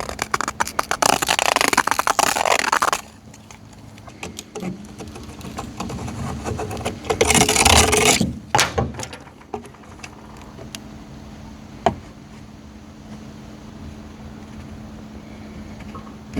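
Scraping in two bouts of rapid strokes, the first lasting about three seconds and the second shorter, about halfway through, with a single sharp click later on over a faint steady low hum.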